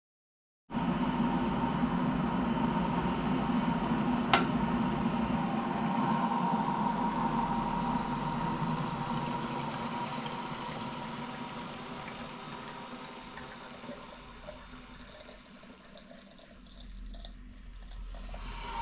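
Steady rush of water while tea is being made, with one sharp click about four seconds in; the rush fades gradually over the second half and swells slightly again near the end.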